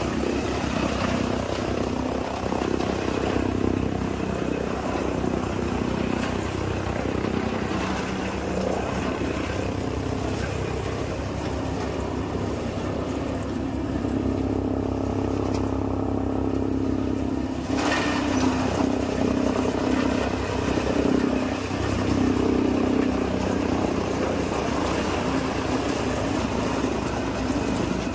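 Tractor-driven chaff cutter running steadily with the tractor's engine, chopping green fodder stalks and blowing the chopped silage through its spout into a trailer. A brief sharp knock about eighteen seconds in.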